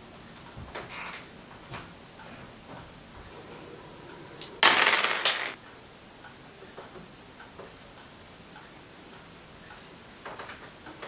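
A clock ticking in a quiet room. About halfway through, a loud clatter lasts about a second.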